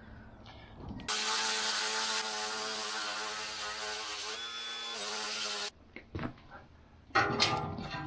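Makita cordless angle grinder starting about a second in and grinding rust off a steel part, running steadily with a whine for about four and a half seconds before cutting off suddenly. A few faint knocks follow.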